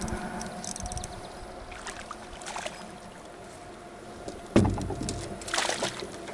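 A spinning reel ticks briefly as it is cranked. About four and a half seconds in, a heavy thump and then a rattling clatter sound in the boat as the bass is brought aboard.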